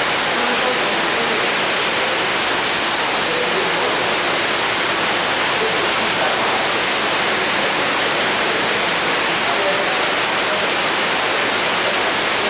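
Steady rush of churning water in an indoor fish-farming tank, an even, unbroken noise, with a faint murmur of voices underneath.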